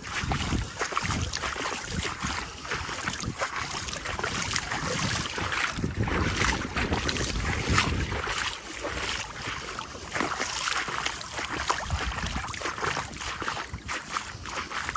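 Strong gusty wind buffeting the microphone, with low rumbles that rise and fall with the gusts.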